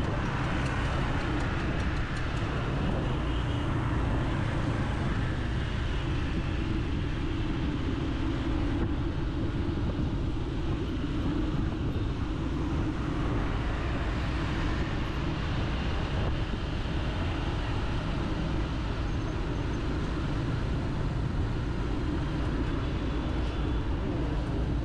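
Steady street traffic noise from passing vehicles.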